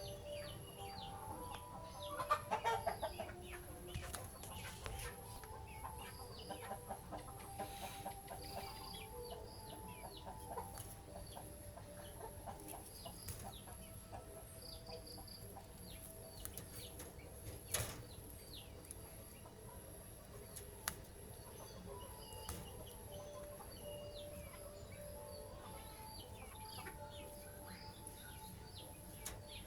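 Several birds calling: short, high, falling chirps scattered throughout and lower held notes, with a louder flurry of calls about two seconds in. A faint steady high whine runs underneath.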